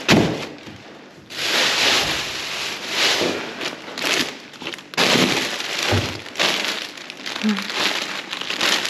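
Plastic food packaging and bagged salads crinkling and rustling in irregular surges as gloved hands rummage through a wheelie bin, with a dull knock about six seconds in.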